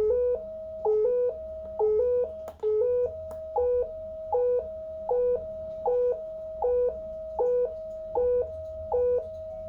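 A breadboard synthesizer circuit's speaker bleeps in a loop: a short lower tone, then a longer higher one, the pair repeating a bit more than once a second. This is its three-LED sequencer misbehaving, which the builder suspects comes from a wiring mistake.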